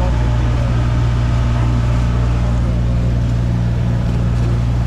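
Motorboat engine running at a steady speed, an even, unbroken low drone.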